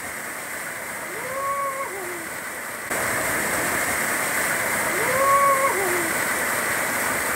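Waterfall pouring and splashing into a shallow pool, steady, and louder and closer from about three seconds in. A pitched tone that glides up, holds and falls away comes in twice over the water, about three and a half seconds apart.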